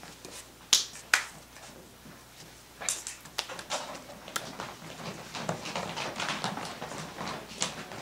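Finger snapping: two loud, sharp snaps about a second in, a few more scattered ones, then a denser patter of lighter snaps toward the end.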